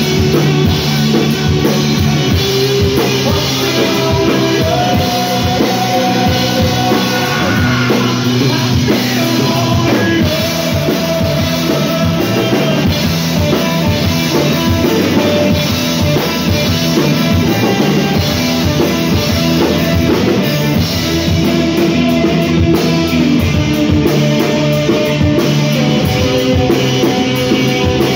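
Live rock band playing loudly, with drum kit and electric bass driving the song.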